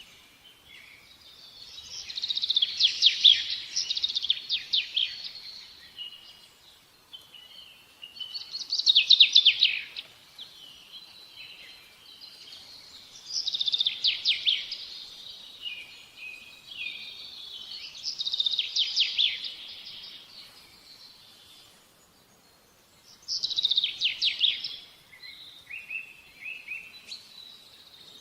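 A songbird singing, repeating a short phrase of rapid trilled notes about every five seconds, with softer chirps between the phrases.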